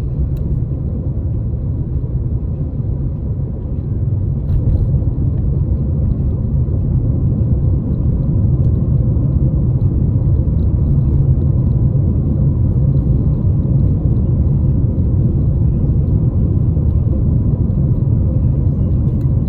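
Steady low rumble of a car driving, engine and road noise heard from inside the cabin. It grows a little louder about four seconds in as the car gets up to speed.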